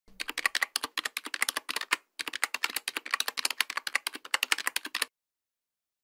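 Rapid keyboard typing, many clicks a second, in two runs with a short break about two seconds in, stopping about five seconds in.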